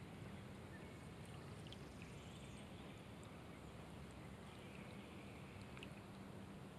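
Faint, steady hiss of light rain falling on a pond, with a few scattered soft drop ticks and a low steady hum underneath.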